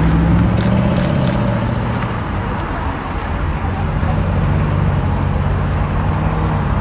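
Audi RS Q8's twin-turbo V8 exhaust as the SUV pulls away and drives off. It is loudest in the first second, dips a little, then settles into a steady low drone.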